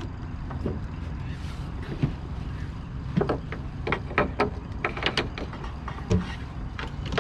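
A steady low rumble on a small boat, with a quick run of about a dozen sharp clicks and knocks between three and five and a half seconds in.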